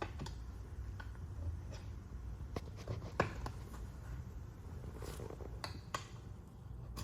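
Small steel tire irons levering a stiff tire bead over a small wheel rim: scattered scrapes and sharp clicks, the loudest about three seconds in.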